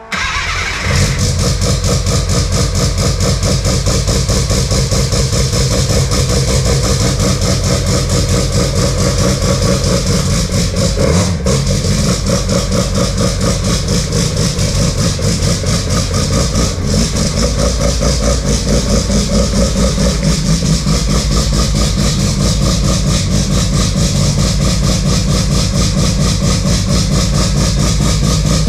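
Classic Mazda race car's rotary engine catching on start-up and then running steadily at idle with a rapid, even pulse. It is the first start after the car has sat for two to four months.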